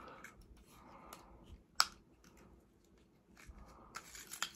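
Faint plastic clicks and rubbing from handling a Transformers Studio Series Shockwave action figure, with one sharp click a little under two seconds in and a few more near the end.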